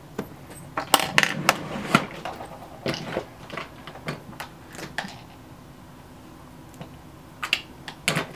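Small hard plastic makeup items, such as pencils, caps and containers, clicking and clattering as they are picked up and set down. The clicks come irregularly for the first few seconds, stop, then return briefly near the end.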